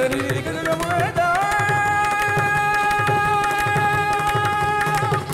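Carnatic music: a male vocalist glides up about a second in and holds one long high note for about three and a half seconds, over a steady rhythm of mridangam strokes.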